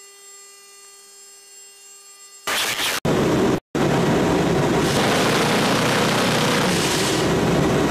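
A faint steady hum for the first two seconds or so, then a Gatling-type rotary cannon on an AC-130 gunship firing a long continuous burst, a loud dense ripping noise broken twice by short cuts just after it starts.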